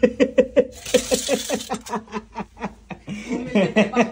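A person laughing in quick repeated bursts, about five a second, with a breathy hiss about a second in.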